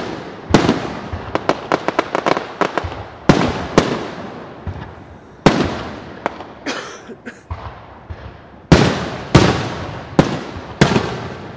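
Aerial firework shells bursting overhead: about ten loud bangs, each trailing off in a fading rumble, with a rapid run of smaller crackling pops between about one and three seconds in.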